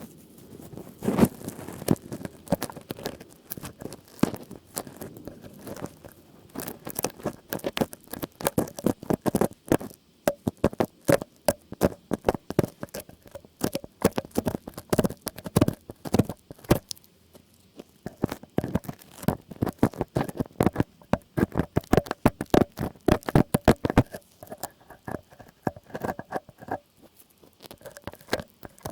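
ASMR trigger sounds: rapid, irregular crisp tapping and scratching, many sharp clicks a second, with a short pause about two-thirds of the way through.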